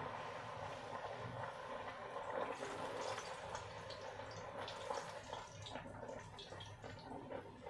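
Close-miked eating and drinking sounds, with many small irregular clicks and liquid noises.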